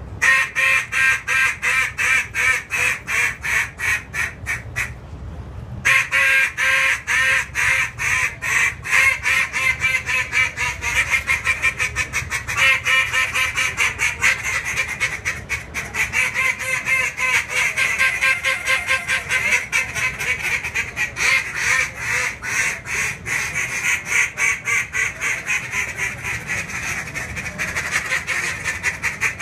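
Two duck calls, a JJ Lares T1 and a Molt Gear Q-AX, blown together as a competition calling routine: a continuous run of rapid hen mallard-style quacks. A single call is heard at first, and the sound becomes denser and fuller about six seconds in, as the second call joins.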